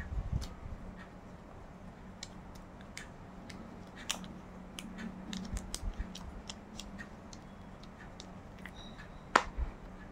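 Small clicks and taps of a clear plastic earplug case and soft silicone earplugs being handled, with a louder plastic snap about nine seconds in as the case lid shuts. A faint steady low hum lies underneath.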